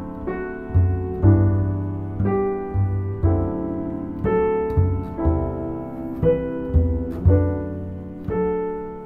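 Solo piano music: notes and chords struck about twice a second, each ringing and fading, over low bass notes.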